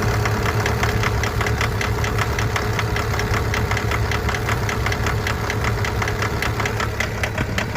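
Mitsubishi L200 pickup's engine idling steadily, with a fast, even ticking clatter throughout.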